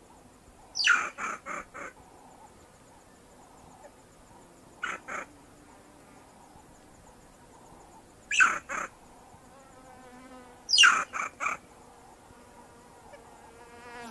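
Banded mongoose calling in four short bursts of high-pitched chirps spaced a few seconds apart. Each burst opens with a falling note followed by two or three quick shorter notes.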